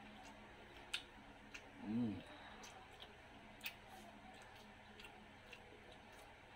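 Faint mouth clicks and smacks of someone eating noodles by hand, with a short hummed "mm" about two seconds in.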